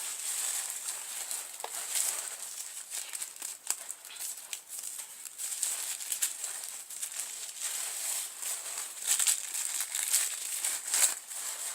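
Packaging crinkling and rustling as it is handled, in irregular crackles.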